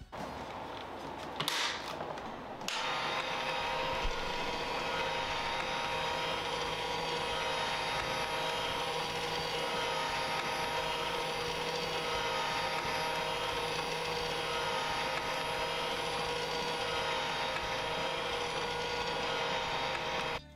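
Battery-powered motor of a Hot Wheels Super Ultimate Garage spiral car elevator running steadily, a hum with a few steady tones, starting about three seconds in after a brief noise.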